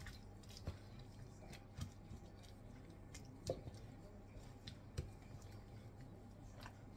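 Faint scattered clicks and taps, four of them sharper than the rest, as gloved hands handle and lift rice-paper wrappers on a wooden tabletop.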